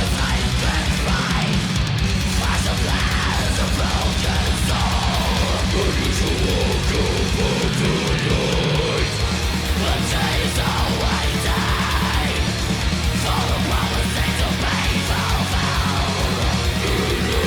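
Heavy metal playing with a high-gain, buzzsaw-style 'chainsaw' distorted electric guitar tone from the Audiority Doomagorgon, in a fast, steady rhythm that is loud throughout.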